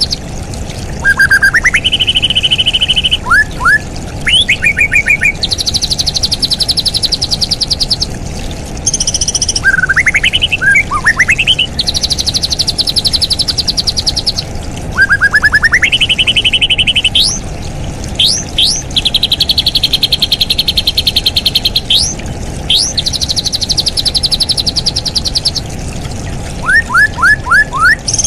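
Songbird singing: long rapid trills, each held at one pitch for a second or more, alternating with quick upward-sweeping whistles, repeated throughout.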